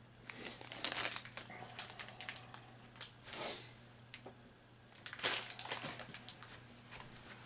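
Rustling and crinkling from things being handled, in several short bouts.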